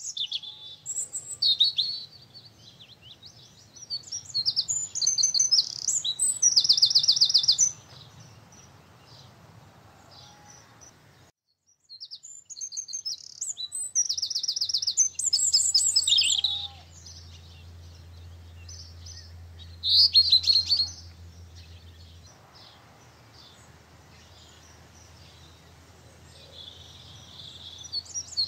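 Songbirds singing: short chirped phrases and rapid trills, the loudest about 6, 15 and 20 seconds in. A faint low hum runs underneath and drops out briefly near 12 seconds.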